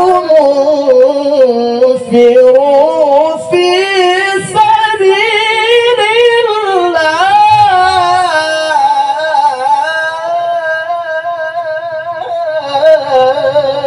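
Man's voice in melodic Quran recitation (tilawah) through a microphone: one long, drawn-out sung line with wavering ornaments, held with hardly a break.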